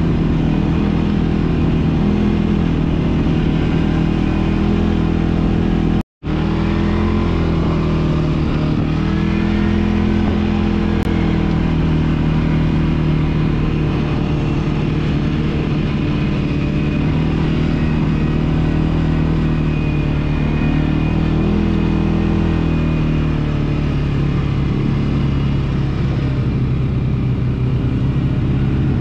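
ATV engine running while riding, its pitch rising and falling gently with the throttle. The sound drops out completely for a split second about six seconds in.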